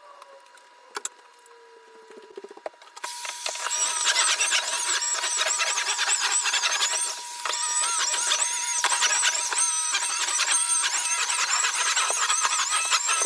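Vacuum cleaner switched on about three seconds in, then running steadily with a high-pitched whine. Before it starts there are only a few faint clicks.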